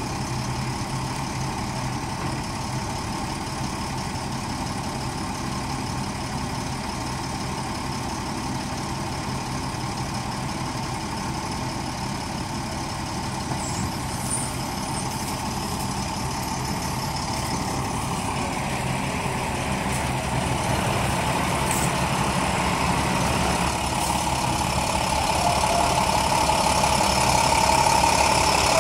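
Diesel engine of an International rollback flatbed truck idling steadily, growing gradually louder over the second half.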